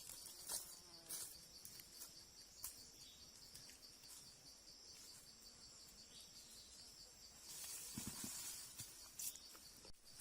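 Faint insects trilling steadily at a high pitch in an even pulsing rhythm. A few light clicks come near the start, and a burst of rustling starts about three-quarters of the way in.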